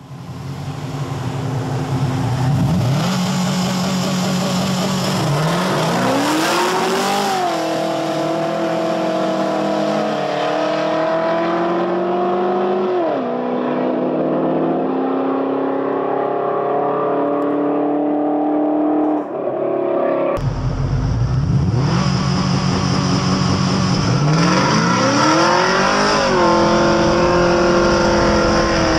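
An LS1 V8 Camaro Z28 and a turbocharged Subaru WRX STi launching from a stop and accelerating hard, engine pitch climbing steeply, then dropping back at each upshift. About two-thirds of the way through, the sound cuts abruptly to a second take of the same hard acceleration with a deeper engine note.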